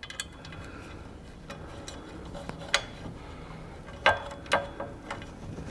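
A short bolt being threaded by hand into a steel TV-lift mounting bar: scattered small metal clicks and ticks, the loudest a pair about four seconds in.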